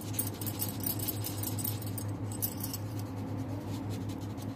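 Quick back-and-forth scratching of red colour being scribbled onto a paper worksheet to fill in a box, under a steady low hum.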